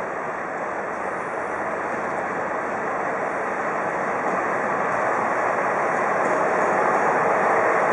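A train running on the station tracks: a steady noise of wheels and running gear that grows gradually louder.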